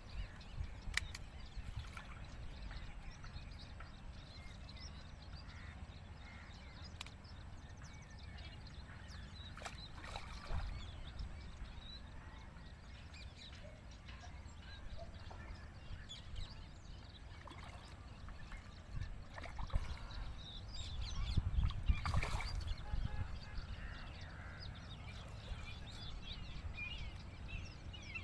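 Birds calling on and off over a steady low rumble, with scattered small clicks and one louder stretch of noise about three-quarters of the way through.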